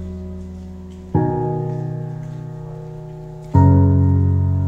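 Background music: slow piano chords, one struck about a second in and another past the middle, each left to ring and fade.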